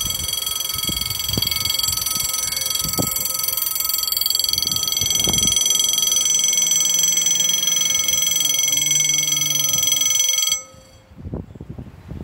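Railway level-crossing warning bell ringing steadily as the crossing closes, then cutting off suddenly near the end once the barrier is down, leaving wind noise.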